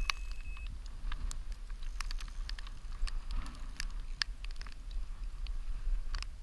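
Wind buffeting the microphone as a steady low rumble, with many scattered light ticks and taps, consistent with rain spattering on the camera. A steady high tone sounds in the first moment and stops.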